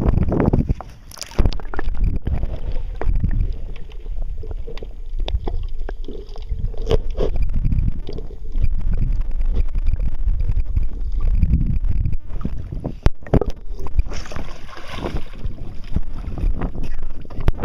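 Water sloshing against a small boat's hull with wind rumbling on the microphone, loud and uneven, broken by a few sharp knocks and clicks from handling.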